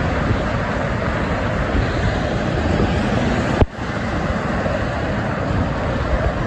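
Steady rushing roar of dense expressway traffic, cars and transport trucks passing below, with wind on the microphone. A click and a brief drop about three and a half seconds in, where the sound is cut.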